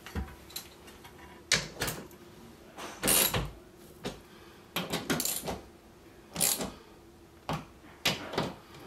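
Hand ratchet wrench clicking in short bursts as screws through a steel TV wall-mount bracket are tightened. Metal clinks from the socket and bracket come between the bursts.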